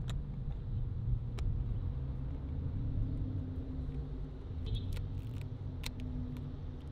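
Steady low vehicle rumble, with a few light sharp clicks from a Leica M4-2 rangefinder film camera being handled.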